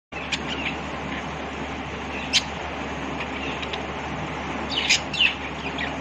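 Budgerigar giving short, sharp chirps: a few scattered calls, with a louder pair about two seconds in and near the end, over a steady low hum.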